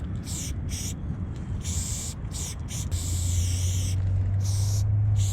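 Aerosol spray paint can spraying in a run of short hissing bursts, with one longer spray about three seconds in. A steady low drone runs underneath and gets louder about three seconds in.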